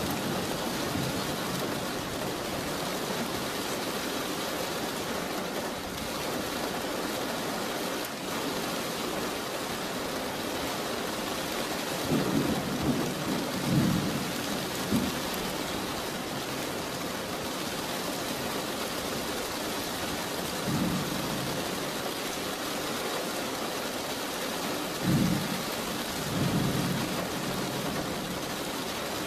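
Steady rain falling, with rumbles of thunder: a longer roll after about twelve seconds and shorter ones later on.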